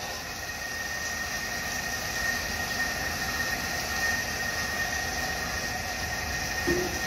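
Thermomix kitchen machine running its blade steadily, a whirring motor with a thin high whine, blending chickpeas, garlic and olive oil into hummus. A short knock near the end.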